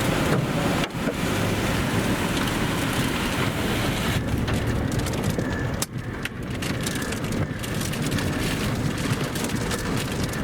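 Strong rear-flank downdraft wind and rain buffeting a storm-chase vehicle: a steady, loud rushing noise with deep low buffeting that eases briefly about six seconds in.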